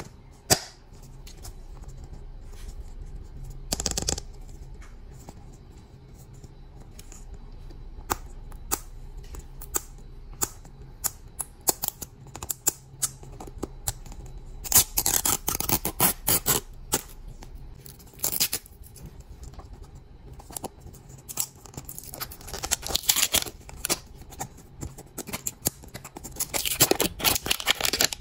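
Crinkling and crackling of the plastic shrink wrap on an L.O.L. Surprise toy ball as it is handled and peeled open. Scattered taps and clicks come first, then crinkling in bursts from about halfway, dense and continuous near the end.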